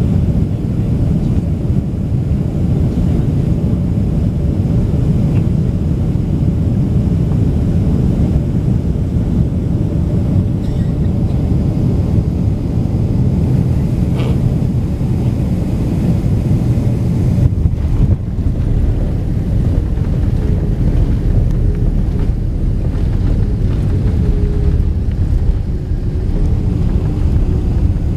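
Jet airliner cabin noise during landing: a loud, steady rumble of engines and airflow on short final. About two-thirds through the rumble briefly dips and then turns deeper and heavier as the jet touches down and rolls out with its spoilers raised, and a faint wavering engine tone comes in near the end.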